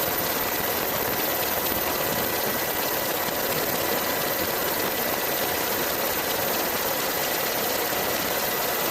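Steady engine noise: an even, unchanging mechanical hiss with faint steady whining tones.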